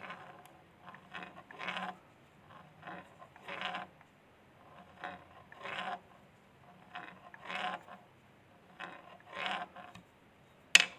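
Motorcycle crankshaft and connecting rod turning slowly in an open crankcase, giving a metallic clatter about every two seconds, a short burst followed by a louder one on each turn. A single sharp loud click near the end.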